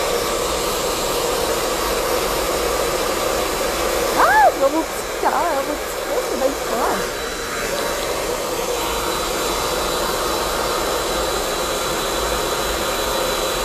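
Hand-held hair dryer with a diffuser attachment running steadily, a constant airflow rush with a faint steady hum. A few short sliding tones rise and fall over it about four to seven seconds in.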